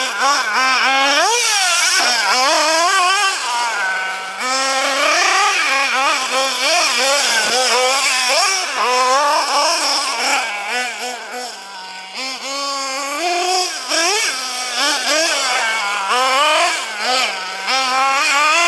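Small nitro glow engine of an RC truggy revving up and down over and over as it is driven, its pitch rising and falling constantly with the throttle. The engine was running lean from a fuel-pressure problem on this run.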